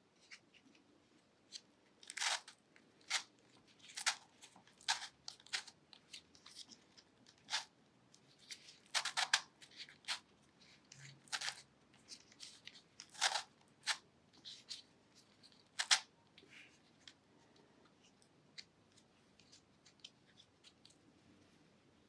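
A 3D-printed Ripple Dodecahedron twisty puzzle being turned by hand: its plastic pieces give a string of sharp, irregular clicks and clacks as the layers twist, some in quick pairs. The clicks thin out and grow fainter over the last several seconds.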